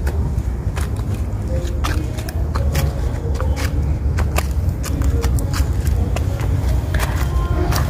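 Footsteps on a path of dry leaves and pitted stone, sharp irregular crackles as the leaves are trodden, over a steady low rumble on the microphone.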